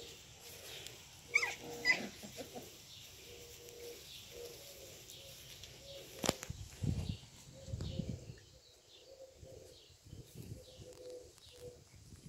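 Garden birds chirping, with a dove cooing again and again in the background. Two brief high squeaks come about a second and a half in, a sharp click about six seconds in, and a few low thumps just after.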